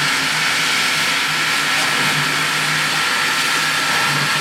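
Union Pacific 3985, a 4-6-6-4 Challenger steam locomotive, rolling slowly past with a steady hiss of steam and a faint low hum, without distinct exhaust chuffs.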